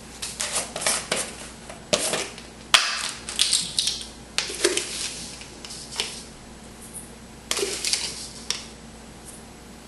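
Salt being measured out of a container into a stainless steel mixing bowl: irregular clicks, scrapes and rattles, with a sharp tap just under three seconds in.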